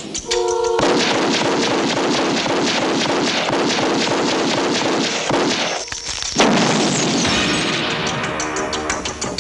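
A short clarinet note, cut off by rapid, sustained gunfire with blasts from an action-film gunfight, over orchestral film music. A short break comes just before the middle. In the last couple of seconds the music's chords come forward while the shots keep coming.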